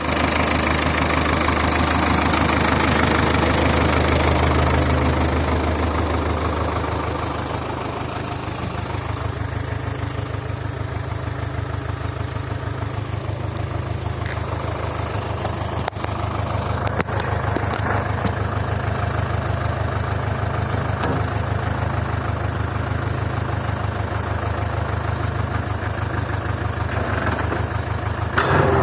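A 1958 Massey Ferguson 35's four-cylinder tractor engine running steadily while it drives a PTO saw bench, with an even, pulsing beat. It runs louder for the first few seconds, eases off after about seven seconds, and picks up again at the very end, with a couple of sharp clicks about halfway through.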